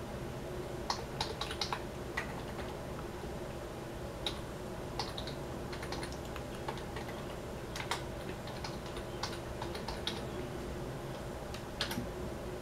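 Typing on a computer keyboard: scattered, irregular key clicks over a faint steady hum.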